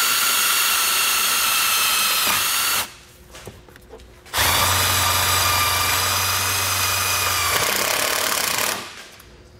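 A Milwaukee cordless drill spins an 8 mm socket to drive a self-tapping screw into the sheet-metal body panel. It runs in two long bursts of steady motor whine with a short pause between them about three seconds in. The whine dips slightly as the screw seats before each stop.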